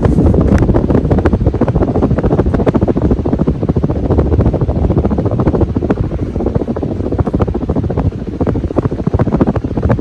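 A 54-inch Hunter Osbourne ceiling fan spinning, its heavy blades pushing a strong draft that buffets the microphone with a steady, low, gusty whoosh.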